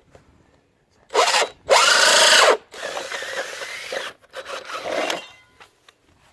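Power drill spinning a 4-inch hole saw to cut the vent hole: two short loud bursts about a second in, then a longer, quieter stretch of cutting that stops a little after five seconds.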